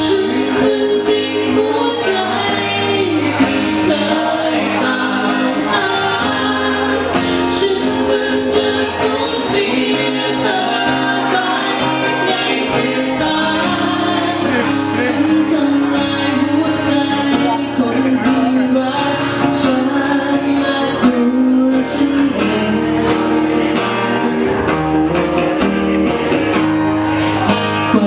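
A song with guitar and singing played continuously.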